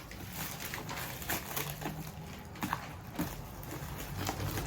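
Scattered small clicks and scrapes of hands working at a newly unboxed item, trying to pull something off it, over a steady low hum.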